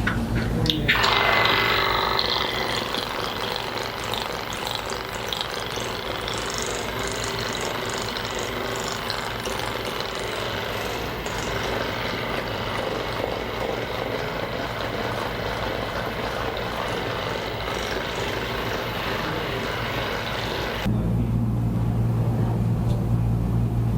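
Steady mechanical buzzing from a small motorized device. About 21 seconds in it changes suddenly to a louder, deeper pulsing hum.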